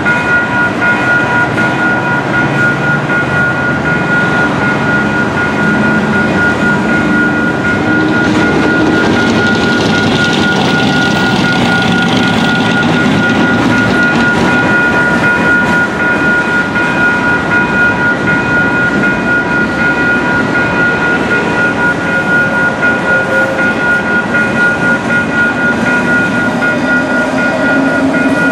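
Freight train of covered hopper cars rolling past at a grade crossing, steel wheels rumbling and clattering over the rails in an uneven, pulsing din. Steady high ringing tones run through it, from the crossing's warning bell ringing continuously while the signals are active.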